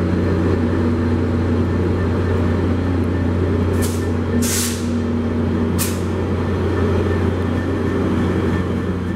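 Metrolink F59PH-series diesel-electric locomotives idling with a steady low drone. About four to six seconds in come three short hisses of air, the middle one the longest.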